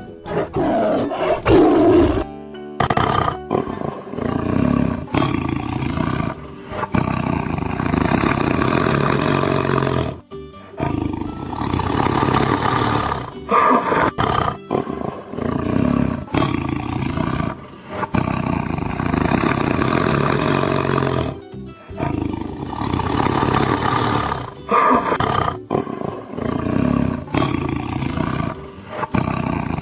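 A big cat roaring again and again over background music.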